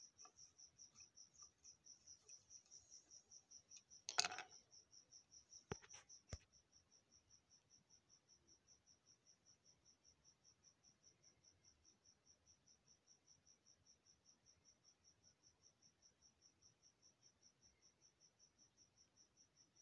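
A cricket chirping faintly and steadily, a high-pitched pulse about four times a second. About four seconds in, a short clatter, followed by two sharp clicks near six seconds.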